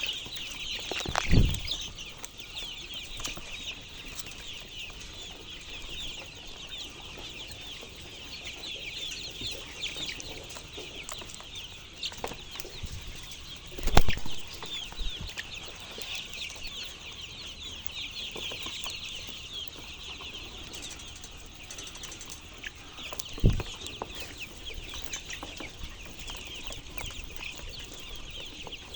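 A flock of chickens calling continuously: many short, high-pitched chirps overlapping into a steady chatter. Three dull thumps cut through it, the loudest about halfway.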